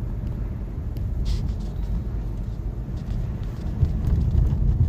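Steady low rumble of a car's engine and tyres heard from inside the cabin while driving on snowy roads.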